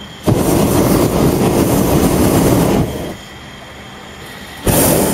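Hot air balloon's propane burner firing overhead: one long blast of about two and a half seconds, then a short blast near the end, each starting and stopping abruptly.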